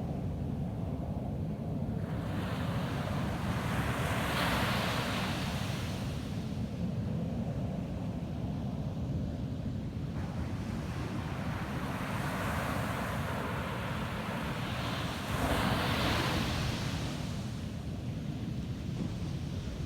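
Ocean waves breaking on a beach: three washes of surf swell up and fade, over a steady low rumble of wind on the microphone.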